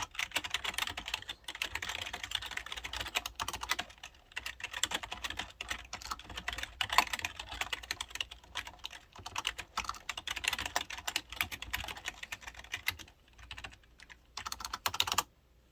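Typing on a 1998 IBM KB-9930 membrane keyboard: a fast, dense run of key clicks. It pauses briefly near the end, then comes back for a moment and stops.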